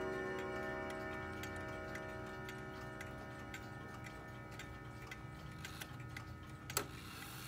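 Howard Miller 613-303 wall/mantle clock ticking about twice a second while the ringing of its last chime tones dies away over the first few seconds. There is one sharper click near the end.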